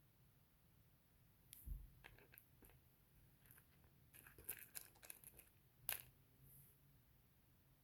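Faint handling sounds of a small parcel of rough opal chips: crinkling and a scatter of light clicks, starting about a second and a half in, with a sharper click toward the end.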